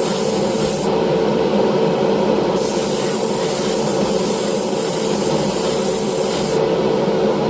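Compressed-air spray gun spraying clear lacquer in bursts over a steady hum. The hiss stops about a second in, comes back after a second and a half, and stops again near the end.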